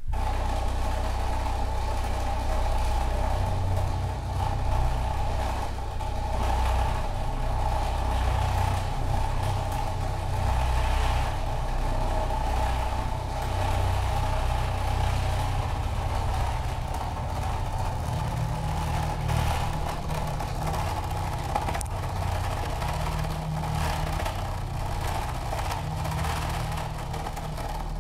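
Electroacoustic drone from a live sonic-arts piece: a dense, engine-like low rumble with a steady middle band and hiss above, cutting in suddenly at the start.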